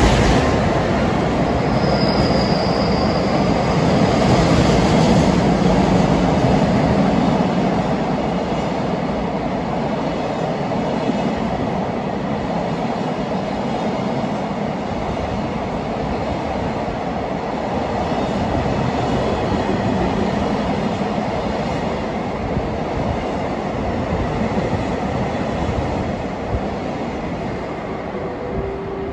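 EF510 electric locomotive and a long freight train of container flatcars passing, a steady loud rumble and clatter of steel wheels on the rails, with a brief high wheel squeal about two seconds in. The rumble eases off a little near the end as the last wagons go by.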